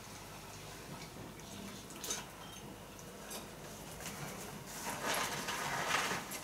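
Whippet puppy eating from a bowl: small clicks and ticks of mouth and tongue against the dish. Near the end comes a louder scuffing rustle lasting about a second and a half.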